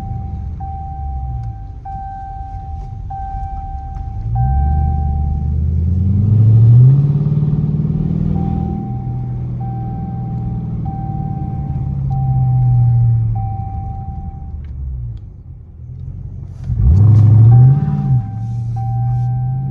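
Straight-piped Dodge Charger R/T's 5.7-litre HEMI V8, heard from inside the cabin while driving, rising in pitch as it accelerates about five seconds in, easing off, then revving up sharply near the end, its loudest moment. A repeated beep-like tone sounds over much of it.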